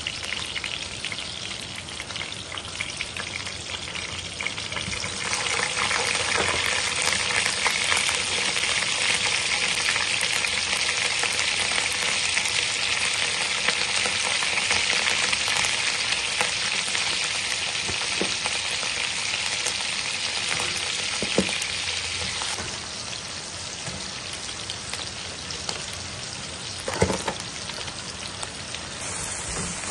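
Whole spices, and then spoonfuls of paste, sizzling in hot oil in a wok. The sizzle is a steady hiss that swells about five seconds in and eases off later on. A few sharp knocks cut through it, the loudest near the end.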